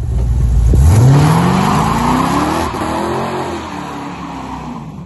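A car accelerating hard away, its engine rising steadily in pitch over about two seconds, with a loud hiss of tyre noise, then easing off and fading.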